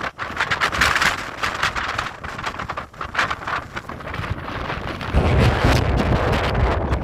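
Strong gusty wind buffeting the microphone, a heavier gust setting in about five seconds in with a deep rumble.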